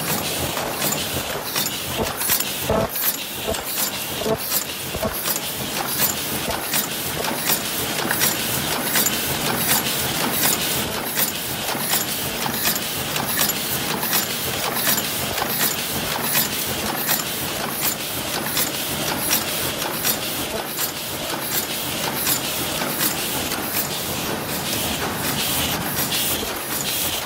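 Paper cup forming machine running at about 80 cups a minute: a steady, dense mechanical clatter of rapid, rhythmic clicks and clacks over a continuous running noise.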